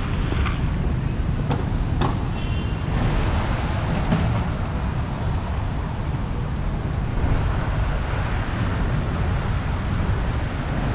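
Busy street with the steady rumble of traffic, a few short clicks, and a brief high beep about two seconds in.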